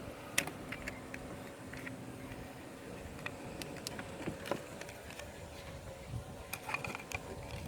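Scattered light clicks and taps of a flathead screwdriver and a plastic trim tool working a car window switch out of its door-panel housing, with a few sharper snaps. A faint steady hum lies underneath.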